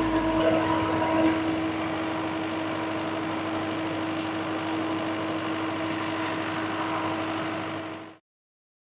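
Lister Petter diesel generator set running steadily after starting, with a steady hum and a faint high whine over the engine noise. The sound cuts off abruptly near the end.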